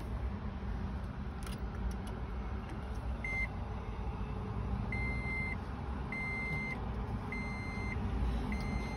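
2010 Toyota Prius cabin warning beeper sounding after the power button is pressed: one short beep, then four longer, evenly spaced beeps about a second apart, over a low steady rumble.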